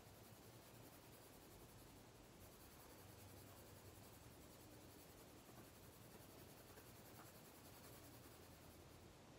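Faint scratch of a colored pencil lightly shading paper, over a low steady room hum.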